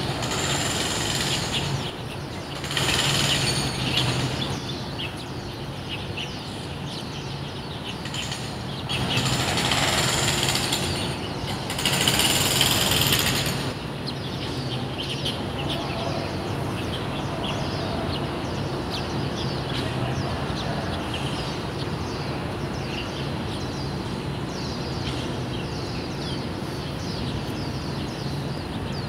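Construction noise. Loud hammering comes in four bursts of a second or two each in the first half, the loudest near the middle, over a steady low machine hum. After that the sound settles into a steadier din with many short high chirps.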